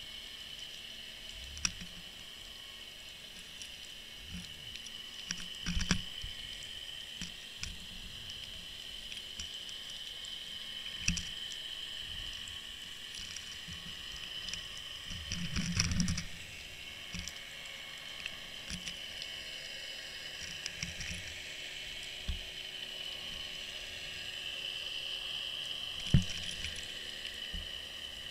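Underwater sound picked up by a camera down on the sea bed: a steady high-pitched hiss with scattered clicks and knocks as the camera shifts on the bottom, the busiest cluster about halfway through and a sharp knock near the end.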